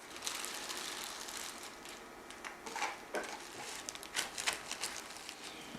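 Faint crackling and rustling as Rice Krispies coated in Nutella are pressed and patted down into a pie pan by hand, with scattered small clicks.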